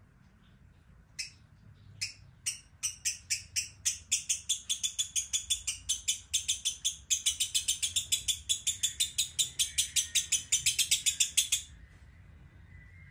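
Caged lovebird giving a long, rapid chatter of shrill chirps. It starts with a few scattered chirps about a second in, speeds up to about six chirps a second, and stops abruptly near the end.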